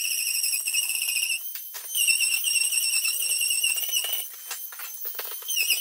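Oscillating multi-tool cutting plasterboard: a high-pitched whine, steady in pitch, with scraping and crackling as the blade works through the board. It drops away briefly about a second and a half in and again around four seconds in.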